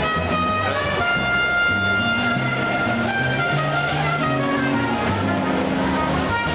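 Brass band music: held melody notes over a bass line that moves from note to note.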